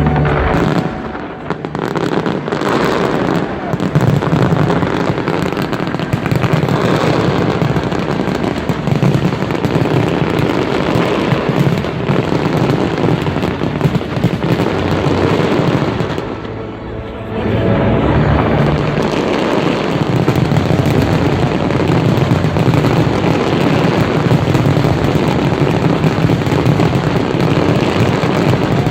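Large fireworks display: a dense, continuous barrage of bangs and crackling, easing briefly twice before picking up again.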